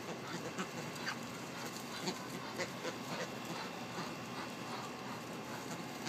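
A mixed flock of American white ibises and Muscovy ducks foraging close by, giving short, irregular calls at scattered moments over a steady outdoor background.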